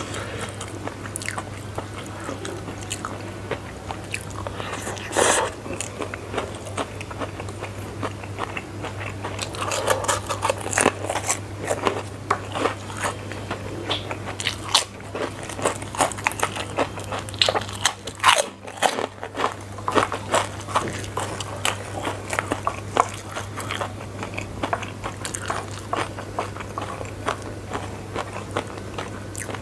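Close-up eating sounds: chewing fried flat rice noodles with frequent crisp crunches of puffed crackers, many small irregular crackles, over a low steady hum.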